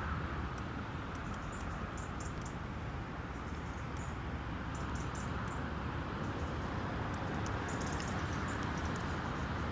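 Steady outdoor wind noise on the microphone, with faint, short, high-pitched chirps scattered throughout.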